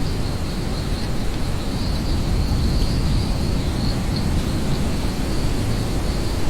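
Steady rain, an even rushing hiss with most of its weight in the low end, and a thin steady high-pitched hum running over it.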